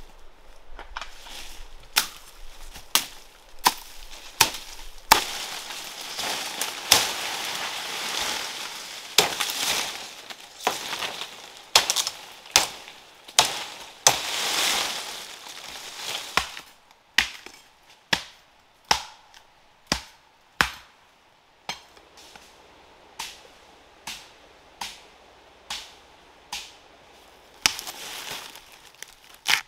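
A series of sharp strikes, roughly one a second, with rustling and scraping sounds between them in the first half.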